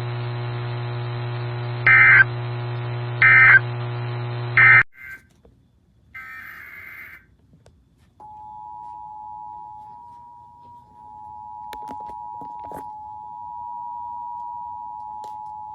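Emergency Alert System broadcast tones. Three short buzzy SAME data bursts (the end-of-message code) sound over a steady low hum, followed after a brief gap by more data bursts. Then, about eight seconds in, comes the two-tone EAS attention signal (853 and 960 Hz together), held steadily for about eight seconds.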